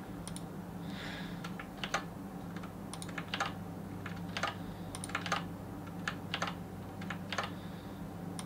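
Irregular clicking of a computer keyboard and mouse as the shop page is refreshed over and over, sharp clicks coming singly and in quick pairs. A steady low hum runs underneath.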